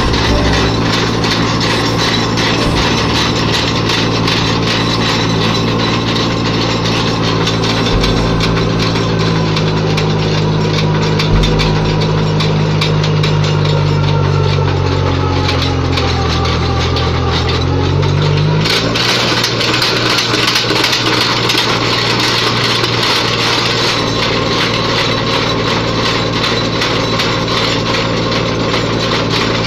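Tractor diesel engine running steadily, powering a mounted post-hole auger rig. About two-thirds of the way through, the engine note changes abruptly and its low hum drops back.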